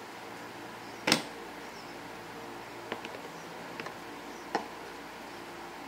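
Plastic LEGO burr puzzle pieces knocking and clicking against each other and the tabletop as the puzzle is taken apart: one sharp knock about a second in, then a few lighter clicks.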